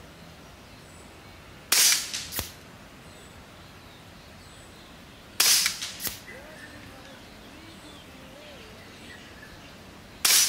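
Three shots from a moderated Kalibrgun Springbok 5.5 mm semi-automatic PCP air rifle, spaced a few seconds apart with the last near the end, firing light 14.35-grain JSB pellets at about 1,000 fps. Each is a sharp crack followed about half a second later by a second, fainter crack. Faint bird chirps can be heard between the shots.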